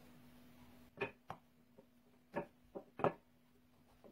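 Wooden rolling pin knocking and bumping on a granite countertop as a ball of bread dough is rolled flat: five or so short knocks between about one and three seconds in.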